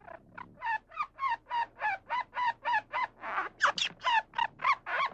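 An animal giving a rapid, regular series of short harsh calls, about three a second, growing louder toward the end.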